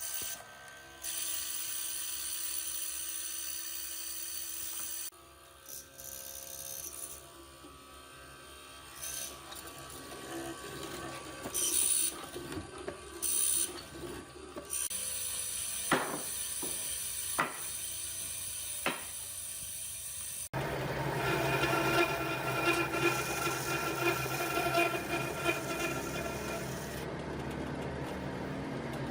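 Power tools working wood, heard in several short stretches that change abruptly, with a few sharp knocks about two-thirds of the way through.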